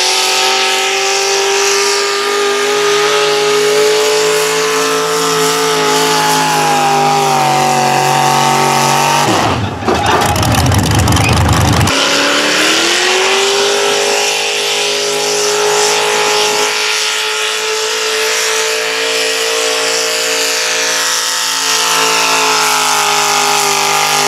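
Modified pulling tractor's engine running at a steady, fast idle. About ten seconds in it is revved hard for two seconds, then settles back, its pitch climbing slightly before holding steady again.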